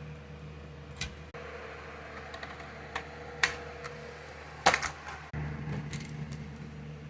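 Irregular sharp plastic clicks and knocks, about six of them, as smoke alarms are handled and taken off their mounting bases, over a steady low hum.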